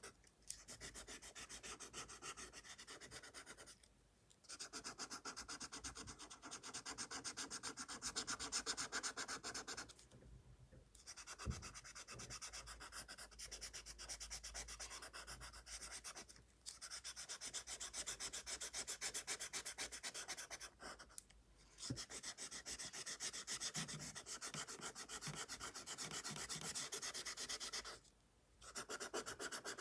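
Colored pencil scratching over sketchbook paper in quick back-and-forth shading strokes, stopping briefly every few seconds, with a light tap about eleven seconds in.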